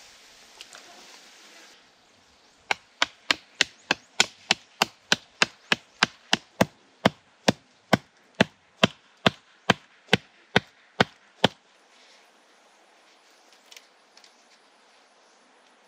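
A hand tool striking again and again in a quick even rhythm, about three sharp chopping blows a second, starting a few seconds in and stopping suddenly near three quarters of the way through.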